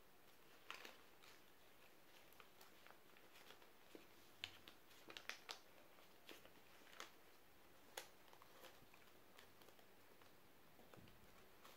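Near silence with faint, scattered paper taps and rustles as the folded paper units of a transforming origami shuriken are pushed and slid by hand, a small cluster of taps about four to five and a half seconds in.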